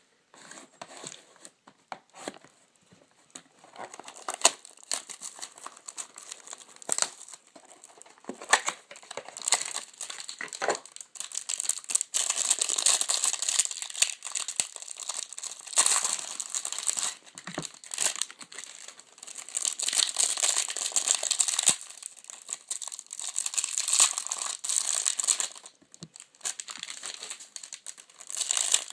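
Plastic wrapping on a box and packs of trading cards being torn open and crinkled, with scattered sharp crackles, the crinkling busiest through the middle of the stretch.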